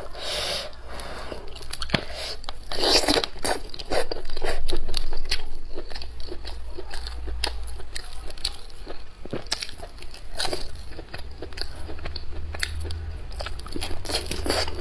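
Close-miked eating of salt-baked chicken: chewing and smacking, mixed with tearing of the skin and meat by hand, heard as many short wet clicks all through, busiest a few seconds in.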